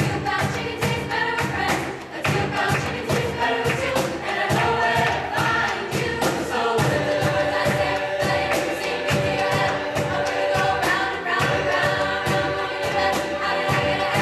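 A choir singing over a steady percussive beat.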